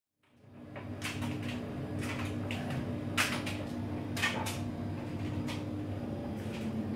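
Front-loading washing machine running mid-wash: a steady motor hum with the drum turning, and the wet laundry inside knocking and clicking against the drum at irregular intervals. The hum drops away near the end.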